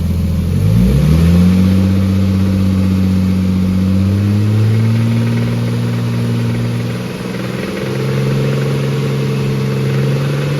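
Nissan RB20 straight-six engine revved up from idle and held at raised revs, dropping back briefly about seven seconds in before being brought up again. The engine is knocking badly at this rev range, which the owner suspects is a spun bearing.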